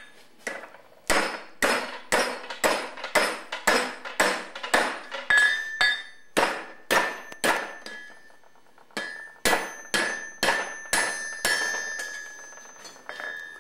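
Blacksmith's hand hammer striking a hot bar on an anvil, about two blows a second with a short pause partway through, the anvil ringing on after each blow. He is hammering the bar around its water-cooled curl to bend the handle of a forged bottle opener.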